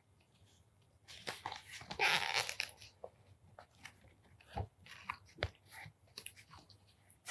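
Pages of a paperback book being leafed through: paper rustling and crackling, loudest about two seconds in, with small ticks of turning pages and a couple of soft knocks as the book is handled.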